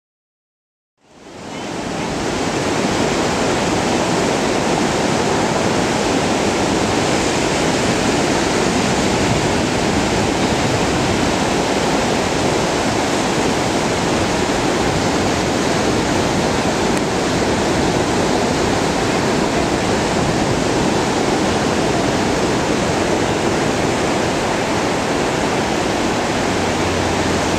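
Ocean surf breaking on the shore, a steady, even rush of water that fades in about a second in.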